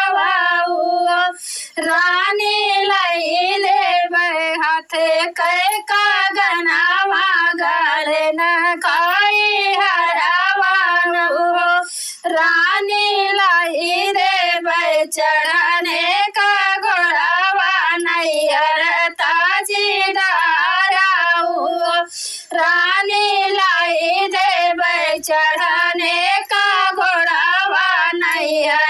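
A woman singing a sohar, the Awadhi folk song for a child's birth, in a high voice with long, wavering, sliding notes and a few short breaks between lines.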